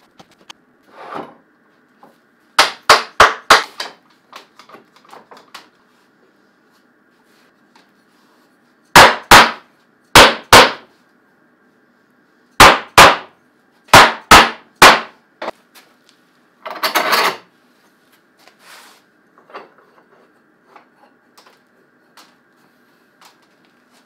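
Rubber mallet knocking on an edge-glued white oak panel held in pipe clamps, tapping the boards level: sharp knocks in quick groups of two to five. One longer scraping sound about two-thirds of the way through.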